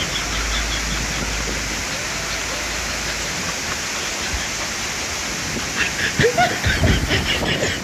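Steady rushing noise of falling water from a waterfall.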